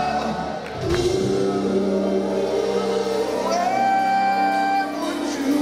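Live rock band playing loudly in a large hall: electric and acoustic guitars, bass and drum kit, with a harmonica line over the top.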